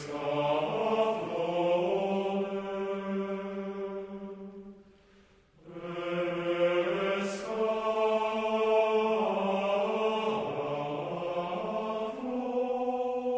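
Background music of chanted choral voices holding long notes that shift slowly in pitch. It fades out about four seconds in and comes back in about a second later.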